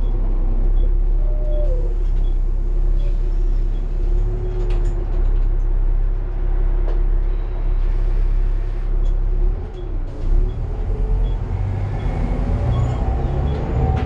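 Volvo B7TL double-decker bus on the move, heard from the upper deck: a low rumble of engine and running gear with a steady whine that briefly drops in pitch and rises again about ten seconds in.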